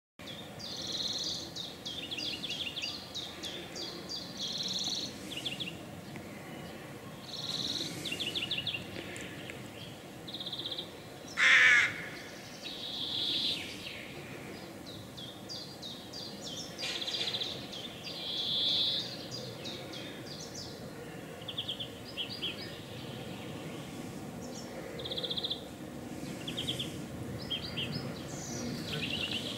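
Outdoor birdsong: small birds singing short phrases of rapid high notes again and again, with one louder, brief call about twelve seconds in.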